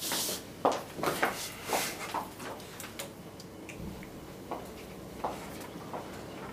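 High-heeled shoes clicking on a tiled floor: a quick run of steps in the first two seconds or so, then a few scattered taps.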